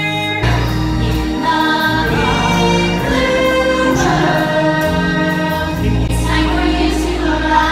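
A stage-musical song: several voices singing together over an orchestral backing track, with a heavy bass coming in about half a second in.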